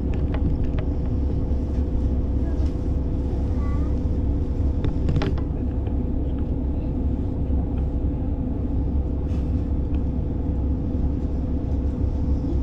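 Diesel railcar running along the line, heard from inside the cabin: a steady rumble of engine and wheels with a steady hum, and a few sharp clicks from the wheels and track, one about five seconds in.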